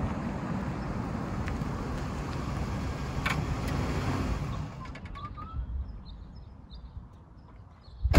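A 1976 Cadillac Coupe de Ville with its 500 cubic inch V8 drives up and pulls in to the curb, its engine and tyre noise steady, then dropping away about four and a half seconds in as it stops. Faint bird chirps follow, and a heavy thump, the car door shutting, comes at the very end.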